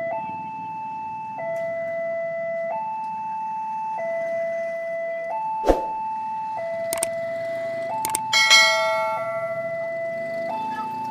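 Railway level crossing warning alarm sounding a steady two-tone signal, alternating between a high and a low note, each held a little over a second. Around the middle come a few sharp knocks, then a loud metallic clang that rings out for about a second.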